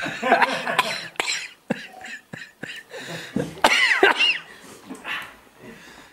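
A person coughing and making short wordless vocal sounds, in uneven spurts, loudest near the start and again a little past the middle.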